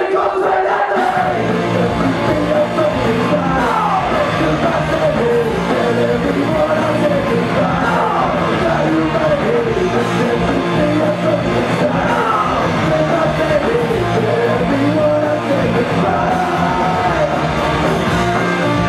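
A live punk rock band playing, with loud guitars and a singer's voice.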